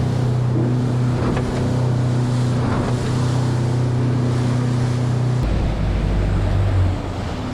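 Charter boat's engine running steadily under wind and water noise. About five seconds in, its note drops lower and a deeper rumble takes over.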